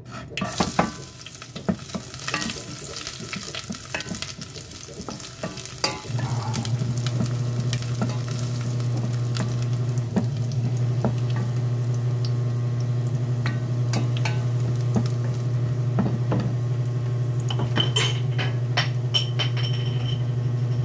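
Chopped garlic sizzling in hot corn oil in a stainless steel saucepan, stirred with a wooden spoon that clicks and scrapes against the pan. A steady low hum starts about six seconds in.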